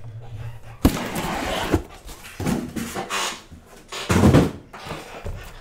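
Cardboard shipping case being handled and moved on a table: a sharp knock about a second in, another just before two seconds, rubbing and shuffling after that, and a heavier, longer thud a little past four seconds, the loudest sound.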